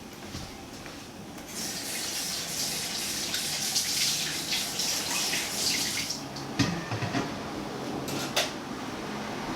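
Water running, likely from a kitchen tap, for about four seconds, then stopping, followed by a few light clicks and knocks.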